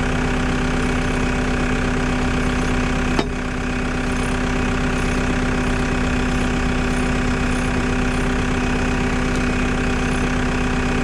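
Caterpillar 262 skid loader's diesel engine idling steadily, with a single sharp click about three seconds in.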